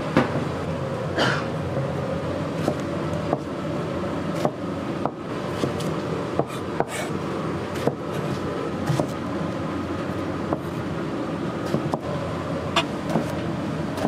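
A plastic cutting board set down on a steel counter with a knock at the start, then a chef's knife slicing eggplant on the board: sharp, irregular knocks of the blade about once a second, over a steady background hum.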